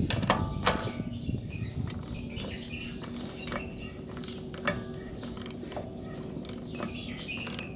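Scattered metallic clicks and light scraping, about one a second, as a loosened axle hub nut is turned off the drive shaft's threads by hand with a socket on it. A steady low hum runs underneath.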